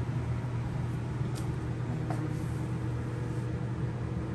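A steady low mechanical hum, with two faint clicks about a second and a half and two seconds in.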